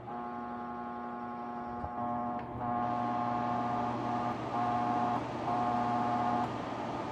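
Wahoo KICKR Headwind fan running, with a rush of air and a buzzing, pitched hum on top that cuts out briefly several times. This hum is the unwanted vibration noise of the fan. About two and a half seconds in, the fan steps up in speed and the airflow gets louder.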